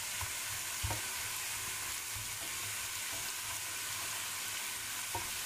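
Food frying in hot cooking oil: a steady sizzle, with one faint tap about a second in.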